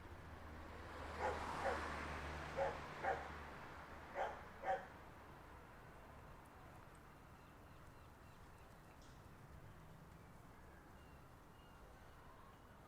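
A dog barking six times, in three quick pairs, over a faint swell of background noise; after about five seconds only faint, steady outdoor ambience remains.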